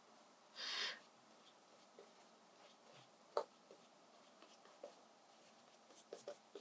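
Faint scratchy swishes of a flat watercolour brush stroking across paper, one louder swish about a second in, with scattered small taps and clicks.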